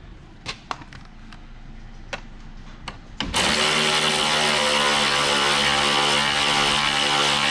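A few light metal clicks, then about three seconds in a cordless electric ratchet starts and runs at a steady pitch, spinning a nut down onto the snowmobile ski's mounting bolt.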